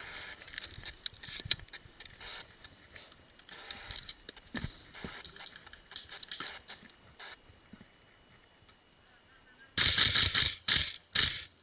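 Airsoft gun firing: a loud short burst near the end, followed by a few quick single shots, after scattered clicks and rustles of gear.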